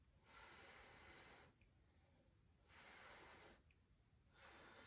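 A person blowing hard in three faint puffs, each about a second long, pushing wet acrylic paint across the canvas in a Dutch pour.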